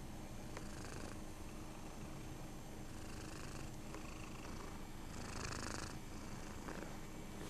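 Domestic cat purring steadily up close as it is stroked, the purr swelling and easing with its breaths.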